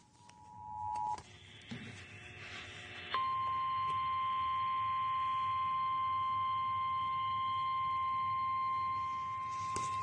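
Emergency Alert System alert tones coming through a small tabletop radio's speaker. A two-note tone grows louder and stops about a second in, followed by a couple of seconds of harsh buzzing. About three seconds in, a single loud, steady attention tone starts and holds.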